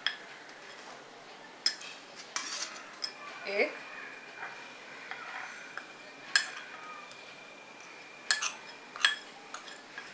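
A metal spoon clinking against a glass bowl and a small steel bowl while scooping flour, with several sharp clinks spread through.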